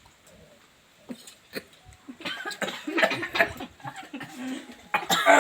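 Several people coughing in irregular fits, brought on by eating cashew apple with red chilli and sea salt. There are a few faint clicks at first, and the coughing starts about two seconds in and is loudest near the end.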